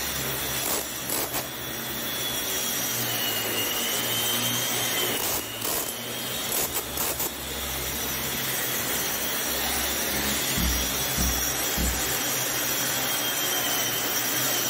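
Hand-held DeWalt angle grinder in a dust shroud grinding a concrete floor, a steady rough grinding noise with a high motor whine, now and then a knock as it bumps the surface. It is grinding off the loose, scaled surface of freeze-thaw-damaged concrete before repair.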